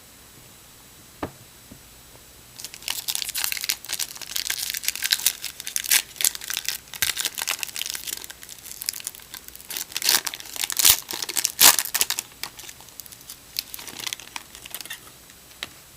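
Trading card pack wrapper being torn open and crinkled by hand, in irregular crackling bursts that begin about three seconds in and fade out near the end. A single sharp tick comes about a second in.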